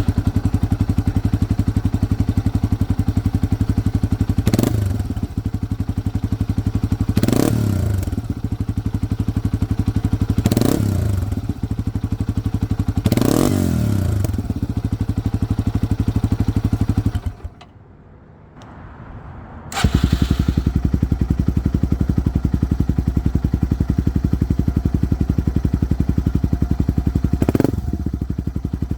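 Yamaha TW200's single-cylinder four-stroke engine idling and blipped four times through the stock muffler. After a short break about 17 s in, it idles again, deeper, through the new DG RST muffler, with a brief rev near the end.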